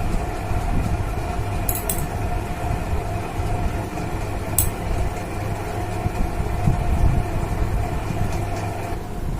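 Steady mechanical hum with a constant tone above it, and two faint short clicks about two seconds and four and a half seconds in.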